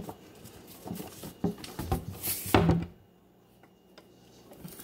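Kitchen handling noises: a few short knocks and clicks, the loudest about two and a half seconds in.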